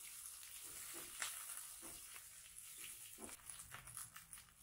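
Faint sizzling of scallions, garlic and ginger frying in oil in a pan, with scattered clicks of a spatula stirring against the pan.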